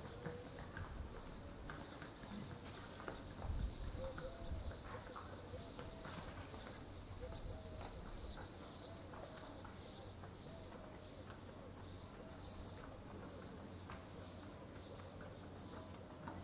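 Outdoor ambience of a car-free village lane: a high chirp repeating about twice a second, with low wavering calls here and there and a few scattered knocks.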